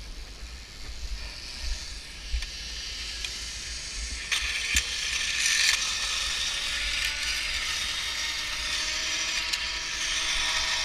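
Zipline trolley pulleys running along the steel cable: a whirring hiss that grows about four seconds in and then holds, with a faint whine slowly rising in pitch and a couple of sharp clicks as it gets going.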